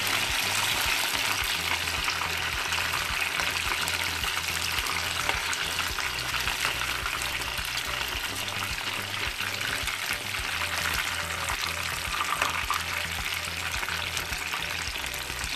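Batter-coated chicken wings deep-frying in hot oil, a steady dense crackle and sizzle, with a spoon stirring and turning them in the pan.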